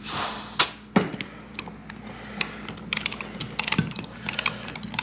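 A short blast of compressed air from a blow gun, forcing the pistons out of a Wilwood brake caliper, then two sharp metallic knocks and a run of irregular clicks and taps from hand tools working the pistons back in.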